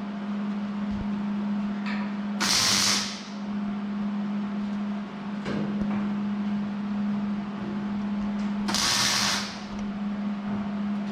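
Arc welder making two short welds on steel angle iron, each a hiss of under a second, about two and a half seconds in and again near nine seconds, over a steady low hum.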